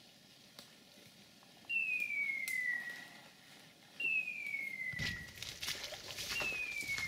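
Dog's beeper collar in point mode: three clean, falling electronic tones, each about a second long, repeating every two seconds or so, signalling that the dog is standing on point. From about five seconds in, a crackling rustle of someone pushing through dry brush and branches runs under the tones.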